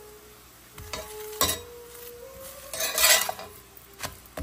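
Metal spatula scraping and knocking on a cast-iron tawa as a chapati is spread with ghee and flipped, over a light sizzle. There are sharp scrapes about one and one and a half seconds in, the loudest around three seconds in, and a knock near the end.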